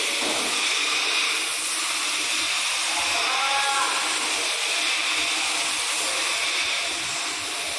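Heavy rain hissing steadily, heard from inside a vehicle workshop. A brief faint call comes through it about three seconds in.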